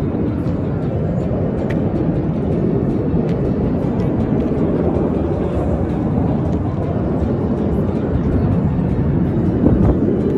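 Aircraft engine noise: a steady, loud low rumble that grows slightly louder near the end.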